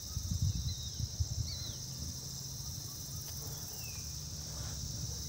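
Forest ambience: a steady high drone of insects, with short descending whistled bird calls several times and a low rumble underneath.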